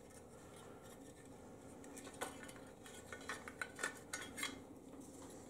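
Faint handling noise of a pole saw's head bracket and fiberglass pole being worked apart by hand: a scatter of light clicks and clinks starting about two seconds in.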